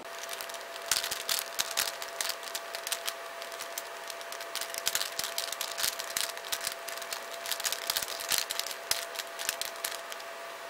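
Plastic Square-1 puzzle being twisted quickly by hand: a rapid, irregular stream of clicks and clacks as its layers turn and slice, over a faint steady hum.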